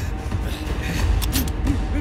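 Action-film score music with a steady deep bass, and a couple of short sharp hits about a second in.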